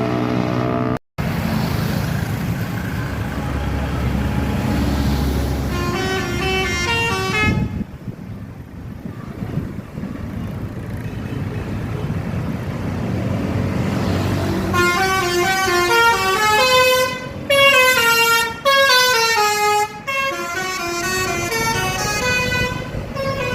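Telolet basuri multi-tone bus horns playing stepped melodic tunes over bus engine and traffic noise: a short run of notes about six seconds in, then from about fifteen seconds in several horns sounding at once in overlapping tunes.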